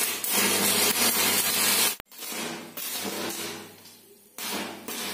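Crackling, hissing electric arc of a stick-welding rod striking steel, fed from AC mains through a tray of salt water that serves as the current limiter, with a steady low buzz underneath. The arc noise cuts off abruptly about two seconds in, and a quieter, uneven hiss follows.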